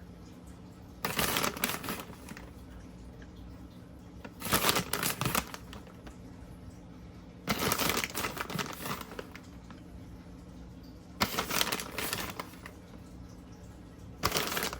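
Crinkly rustling and light clicking in five bursts of about a second each, a few seconds apart, as shredded cheese is handled and sprinkled over the filled muffin cups. A faint steady hum runs underneath.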